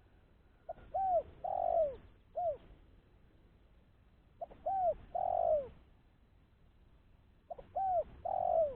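Spotted dove (tekukur) cooing: three phrases about three seconds apart, each a short note followed by arched coos rising and falling in pitch, the longest coo last or near the end.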